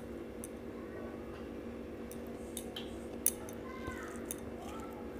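Fingers mixing rice on a steel plate: scattered light clicks and taps against the metal, the sharpest a little past three seconds in, over a steady low hum.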